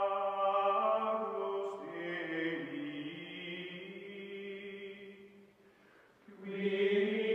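Outro music of chanting voices holding long, drawn-out notes. The notes shift pitch about two seconds in, fade nearly away just before six seconds, and come back in.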